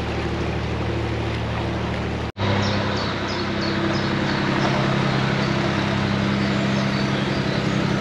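Narrowboat engine running steadily. About two seconds in it cuts out abruptly and resumes at a slightly different pitch, and just after that comes a quick run of short, high, falling chirps.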